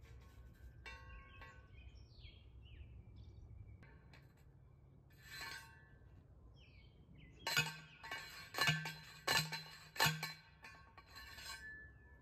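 Metal clanking from steel fencing work with T-posts and hog panels: a quick run of about five sharp, ringing metal strikes some seven seconds in. Birds chirp earlier.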